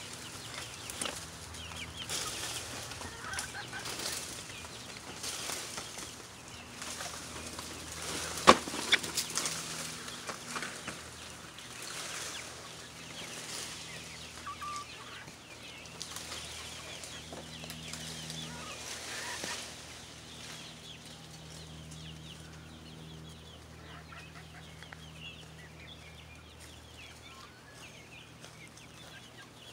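Chickens clucking in the background, with rustling handling noise close to the microphone and one sharp click about eight and a half seconds in.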